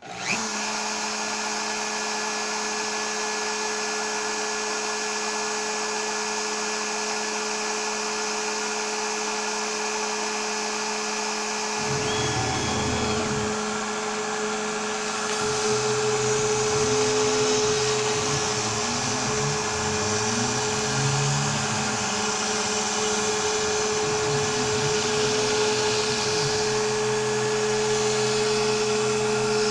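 Onefinity CNC router starting up and running with a steady whine from its spindle. From about twelve seconds in, lower tones rise and fall as the stepper motors drive the axes.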